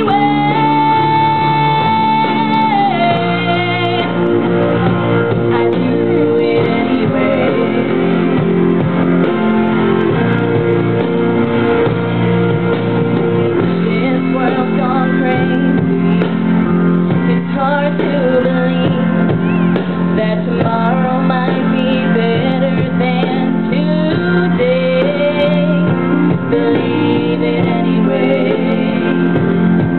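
A woman singing into a microphone over instrumental accompaniment, holding a long note near the start before the melody moves on.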